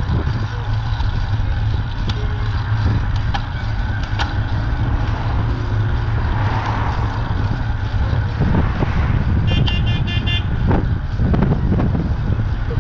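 Steady wind and road rumble on a bike-mounted camera. About three quarters of the way through, a van's horn gives a quick string of four or five short beeps, a 'bip-bip' at the cyclist ahead.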